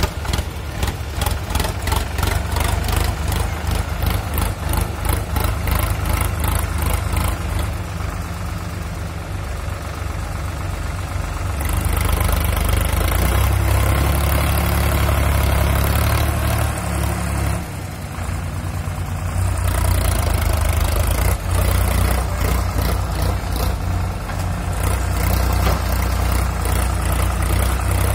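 Sonalika tractor's diesel engine pulling a loaded trolley through mud. An even chugging beat at first, then the engine runs louder and harder from a little under halfway through. It eases off briefly about two-thirds of the way in, then pulls hard again.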